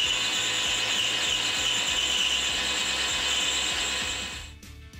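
Metal lathe turning a brass bar: a steady, high-pitched whirring hiss of the spinning chuck and the tool cutting. It stops about four and a half seconds in.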